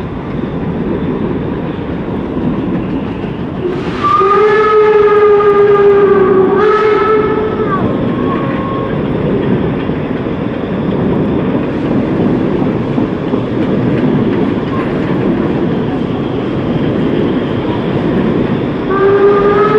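Narrow-gauge steam train's carriages rolling slowly past with a steady rumble. The steam locomotive's whistle sounds a long blast about four seconds in, shifting slightly in pitch before it stops, and blows again near the end.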